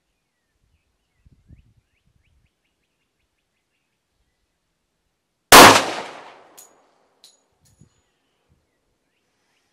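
A single .460 Rowland pistol shot from a Glock 21, sudden and loud about halfway through, its echo dying away over about a second. A few faint ticks follow.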